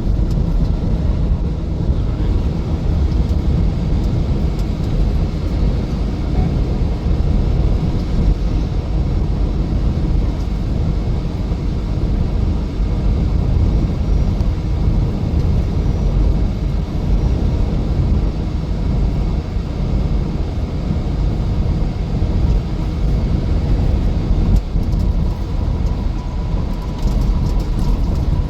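Steady engine and road rumble heard from inside a vehicle cruising on the highway.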